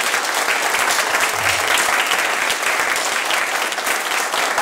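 Audience of many people applauding, loud and steady.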